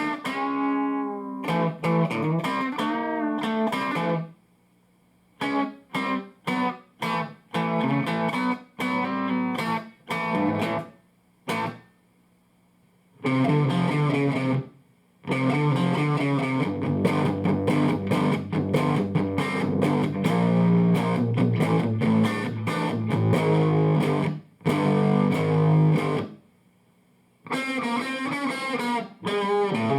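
Electric guitar played through a Fender The Twin valve amplifier (1987–89 red-knob model with four 6L6GC power tubes). Short, choppy chord stabs give way to longer ringing chords past the middle, with a few brief pauses between phrases.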